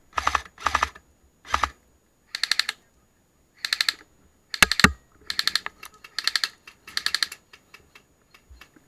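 Airsoft machine gun, a PKM-style replica, firing about nine short full-auto bursts of rapid clicking shots, with a few single clicks near the end.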